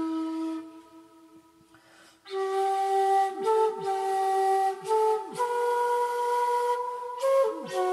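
Solo flute playing a slow melody. A held note fades out within the first second and a short pause follows. The tune resumes about two seconds in, with long notes moving step by step.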